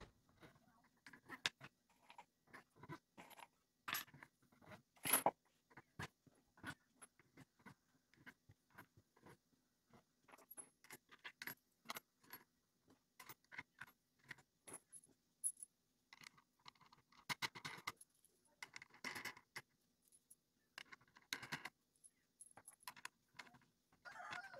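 Small wooden spacer blocks clacking onto the threaded steel rods of a bowl glue-up press, and steel washers and wing nuts clinking as they are dropped on and threaded down: many small, irregular clicks and taps, with a few short scrapes in the second half.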